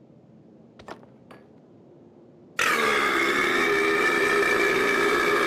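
Two short clicks about a second in, then a loud, long burp that starts suddenly partway through and holds a steady pitch.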